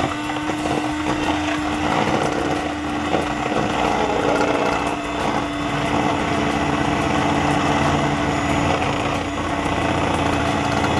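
Electric hand mixer running steadily at one speed, its motor humming as the beaters whisk egg and fresh cream in a plastic bowl.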